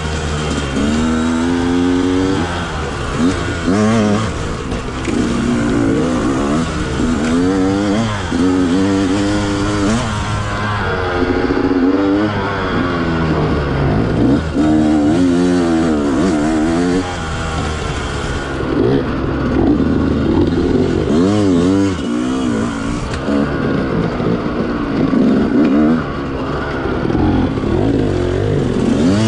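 2020 Yamaha YZ125X's 125 cc two-stroke single-cylinder engine revving up and dropping back over and over, its pitch rising and falling every second or two as the throttle is worked.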